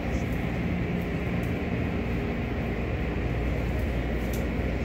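Belanger tunnel car wash equipment running: motors and spinning cloth wash brushes and curtains make a steady low drone with a few faint clicks, heard through the lobby's viewing-window glass.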